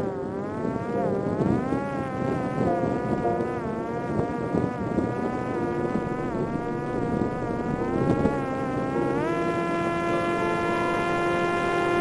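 Buzzing whine of a fixed-wing drone's electric motor and propeller in flight. The pitch wavers gently up and down, then rises about nine seconds in and holds steady.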